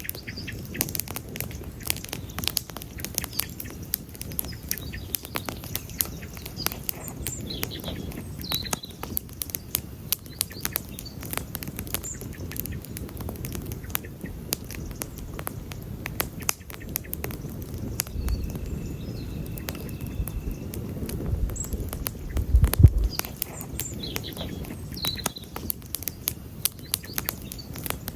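Wood campfire crackling, with frequent sharp pops over the low rush of the flames. Faint bird chirps come through a few times, and a brief low rumble swells a little past the middle.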